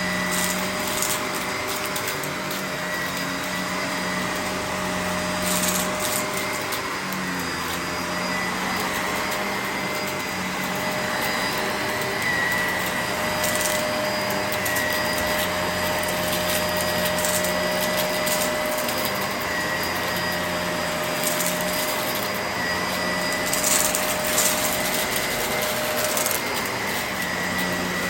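Vacuum cleaner running steadily, its motor whine holding one pitch with small wavers. A few short crackles come through twice.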